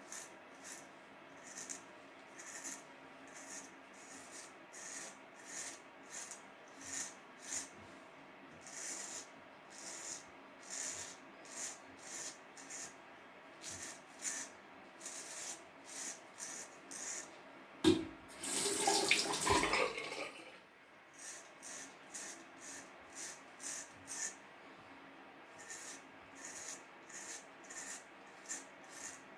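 Wilkinson Pall Mall single-edge razor, set to its most aggressive setting, scraping through about a week's stubble in a long run of short strokes, about one or two a second. About two-thirds of the way through a tap runs for a couple of seconds.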